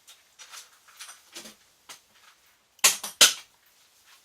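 Ammo box used for storing LiPo batteries being handled. A few light clicks and rattles are followed, about three seconds in, by two loud, sharp clacks less than half a second apart.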